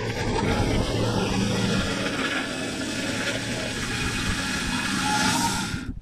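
Norwood Lumberlite ML26 band sawmill running steadily, its engine and band blade sawing along a maple log. The sound cuts off suddenly just before the end.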